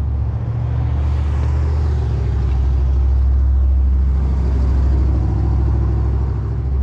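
An engine idling steadily with a deep, even rumble.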